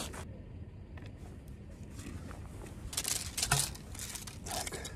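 Handling noise of a feeder rod being taken from its fabric rod cover: soft fabric rustles and light knocks of the rod sections, with a louder rustle about three seconds in that ends in a sharp tick, and another short rustle near the end.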